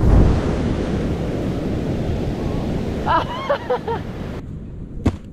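Ocean surf breaking on a beach, with wind buffeting the microphone. A few short voice-like cries come about three seconds in. Near the end the sound cuts to something quieter, with a single thump.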